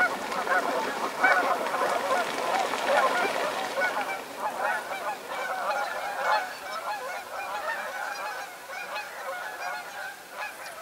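A flock of geese honking overhead, many calls overlapping, growing fainter toward the end.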